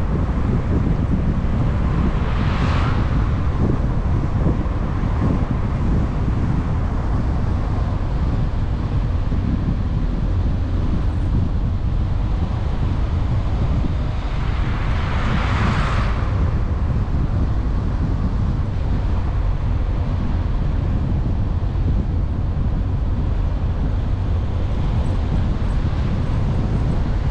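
Car driving along a road: steady low rumble of tyres and wind buffeting the microphone. A hiss swells briefly about two and a half seconds in, and again more strongly around a quarter of the way from the end of the first minute's half, building for a couple of seconds before cutting off abruptly about sixteen seconds in.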